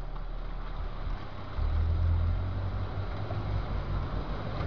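Off-road 4x4's engine working hard to climb out of a mud hole, a deep rumble that gets louder about a second and a half in as it takes more throttle.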